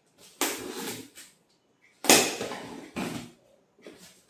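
Packing tape on a cardboard box being slit with a knife and torn open: three noisy, scratchy rips, the loudest about two seconds in.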